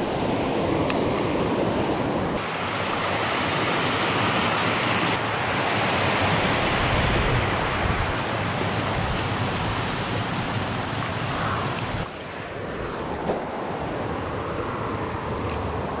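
Creek water rushing over a small waterfall and limestone ledges: a steady rushing noise that drops a little about twelve seconds in.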